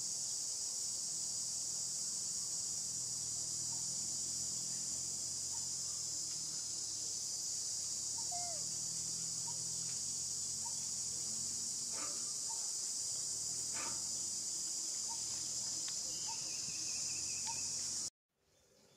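Steady, high-pitched insect chorus, dense and unbroken, that cuts off abruptly near the end. A few faint short chirps and a couple of soft clicks sit beneath it.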